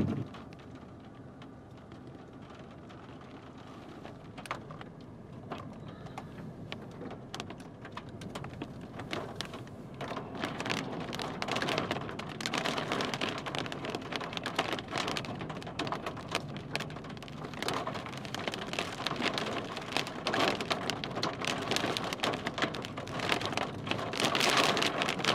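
Raindrops striking a vehicle's windshield and roof as separate sharp ticks, sparse at first, then denser and louder from about ten seconds in as the rain picks up under a storm.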